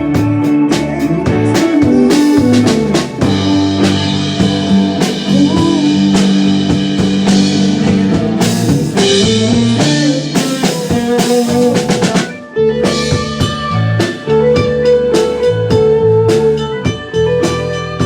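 Blues-rock music played on drum kit, electric guitar and bass, with held guitar notes over a steady beat, dropping out briefly about twelve seconds in.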